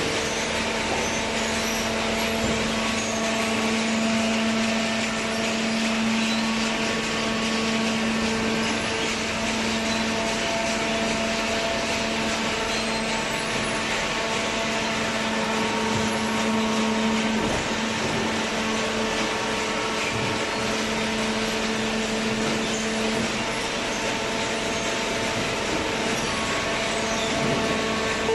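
Industrial cardboard shredding and baling machinery running steadily: a continuous mechanical whirr with a constant motor hum.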